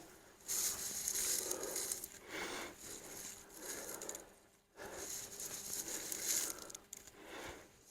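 Faint, irregular breathing and rustling of a person exerting through a set of dumbbell Arnold presses, in several soft gusts a second or two long.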